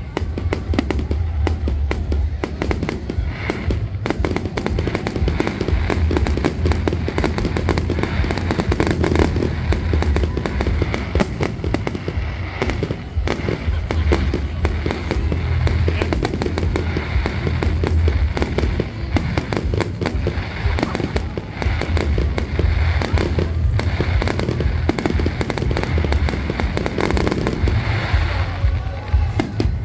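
Fireworks display: a dense barrage of bangs and crackles going off in quick succession.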